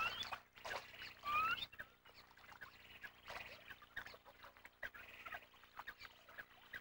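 American coots calling: short rising chirps, two clearer ones near the start, then fainter scattered calls.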